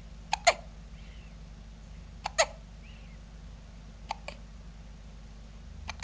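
A person hiccupping at a steady rate, four hiccups about two seconds apart, each a quick double catch.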